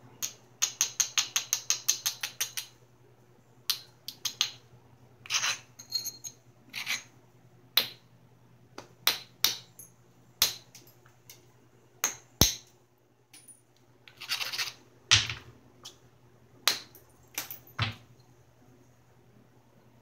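A Georgetown flint biface being worked by hand with a small tool: a fast run of about a dozen short scraping strokes near the start, then single sharp clicks and taps of stone every second or so, with a few longer rasping strokes along the way.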